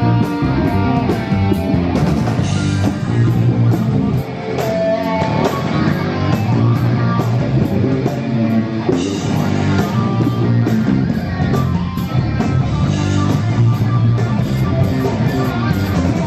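Live heavy metal band playing loud: distorted electric guitar, bass guitar and drum kit.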